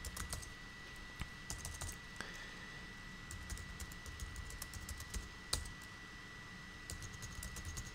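Computer keyboard being typed on, faint key clicks coming in short irregular runs with brief pauses between them.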